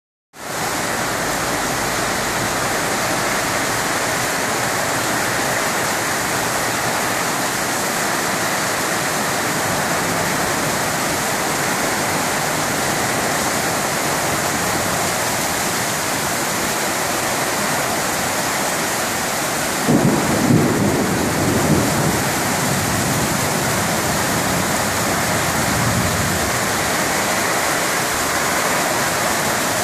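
Heavy rain falling in a steady downpour during a thunderstorm. About twenty seconds in, a peal of thunder rumbles for about two seconds.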